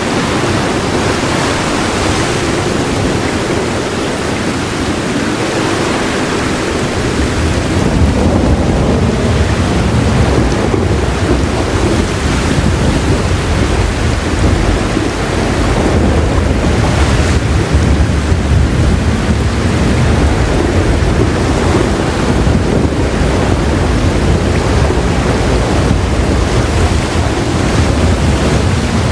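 Heavy rain pouring steadily, joined about a quarter of the way in by a deep, low thunder rumble that keeps rolling beneath it.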